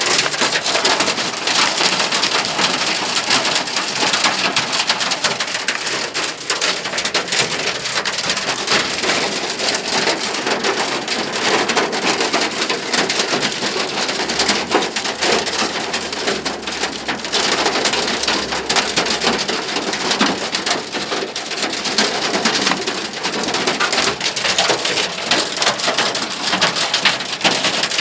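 Heavy rain pouring down mixed with hailstones, a dense, steady patter of many small impacts.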